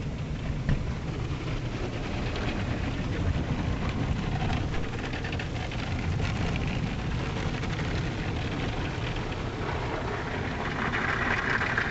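Automatic car wash heard from inside the car: a steady low rumble of the wash machinery with water and soap spraying and splattering on the glass. Near the end the wash brushes scrub across the windshield, and the hiss grows louder.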